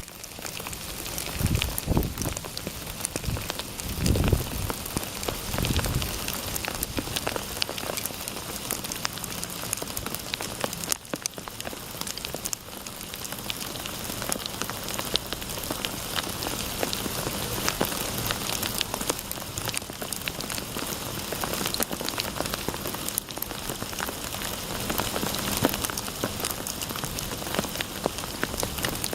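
Winter-storm precipitation pattering steadily on surfaces: a dense run of small ticks, with a few low thumps in the first six seconds.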